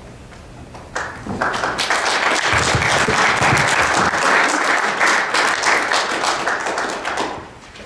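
Audience applauding: the clapping starts about a second in, swells, and dies away near the end.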